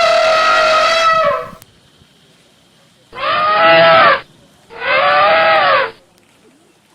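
Elephant trumpeting: three loud, horn-like calls. The first lasts about a second and a half; two shorter calls follow after a pause, each rising and then falling in pitch.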